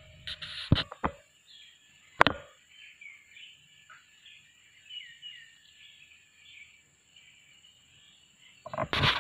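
Birds chirping faintly in the background in short, quick calls, over a steady thin high tone. A few sharp clicks come in the first couple of seconds, the loudest a little after two seconds in, and a burst of loud rustling starts near the end.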